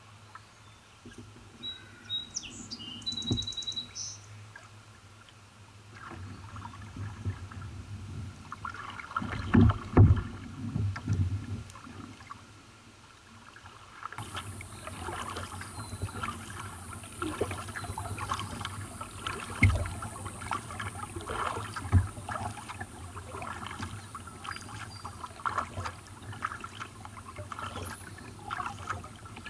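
Kayak paddle strokes: the blades dip and splash in calm water, with irregular splashes and drips on each stroke. A bird chirps briefly a few times near the start.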